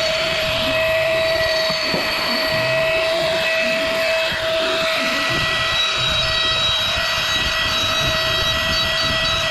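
A power tool's motor running steadily: a constant high whine over a loud rushing noise.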